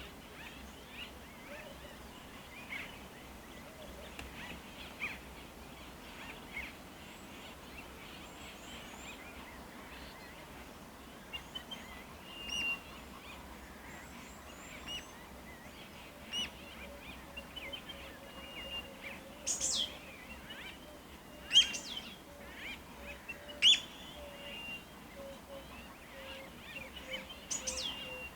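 Several wild birds calling together: scattered short chirps and whistles, with a few loud, sharp calls sweeping down in pitch in the second half. A low, rapidly repeated note runs beneath from a little past halfway.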